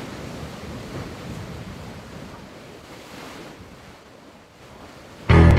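Ocean waves washing with wind noise. Near the end a loud, low bowed-string chord of cello and double bass cuts in suddenly and holds briefly.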